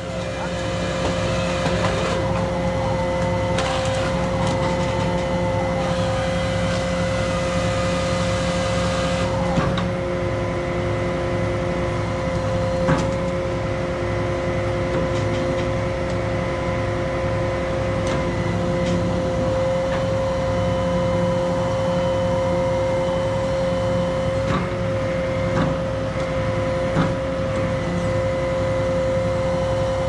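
Truck-mounted tree crane running steadily under a grapple saw, its engine and hydraulics holding one constant whining tone. A higher hiss runs for the first several seconds and stops with a knock about ten seconds in, and a few single knocks follow.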